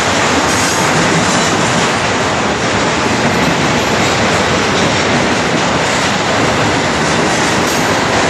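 Double-stack intermodal freight train's container well cars rolling past: a steady, loud noise of steel wheels running on the rails.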